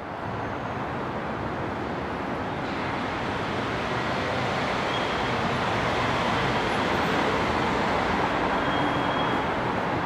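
Steady outdoor background noise of distant road traffic, growing slightly louder.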